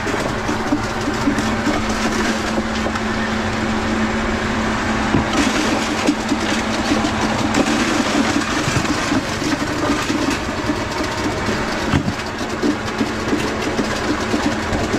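A steady motor running with a constant low drone, amid a continuous busy clatter.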